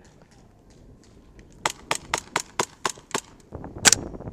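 Gas blowback airsoft guns firing: about seven sharp, evenly spaced shots at roughly four a second starting about one and a half seconds in, then louder, closer shots near the end.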